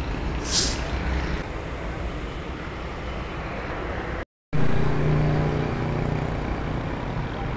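Road traffic noise: cars running and passing on a street, with a brief hiss about half a second in. After a short break in the sound just past the middle, a steady low hum joins the traffic.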